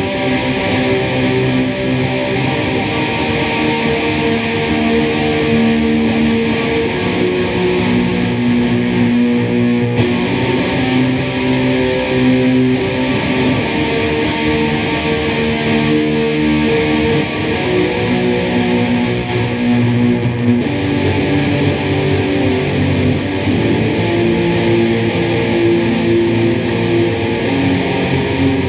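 Distorted electric guitar playing improvised black metal: a dense, loud wall of held chords and droning notes, shifting abruptly twice.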